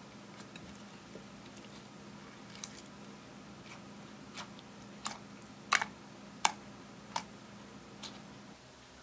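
Clear slime mixed with crushed eyeshadow being pressed and poked by hand, giving soft ticks at first and then about five sharp clicking pops in the second half as trapped air bursts, over a steady low hum that stops near the end.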